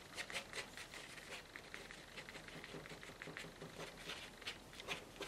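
Faint, quick scratchy strokes of a tool scraping thin grass lines out of wet watercolour paint on paper, many short strokes in an uneven run.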